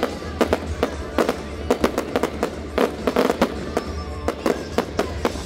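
Aerial fireworks display: a rapid, uneven run of shell bursts and bangs, several a second.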